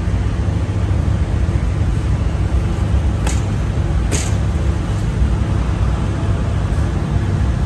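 Steady low rumble of background noise, with two short hisses a little under a second apart about three and four seconds in.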